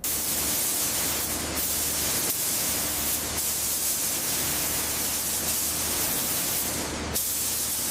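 Compressed-air spray gun hissing steadily as paint is sprayed at about 2.5 bar, easing briefly about a second and a half and three seconds in, and again near seven seconds.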